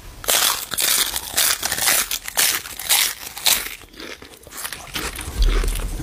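A crispy rolled nori seaweed snack being bitten and chewed close up: a run of irregular crunches, quieter for a moment about four seconds in, then crunching again near the end.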